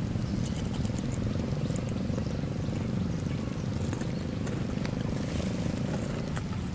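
Faint hum of a distant small engine that stops about six seconds in, over a steady low outdoor rumble, with a few faint clicks.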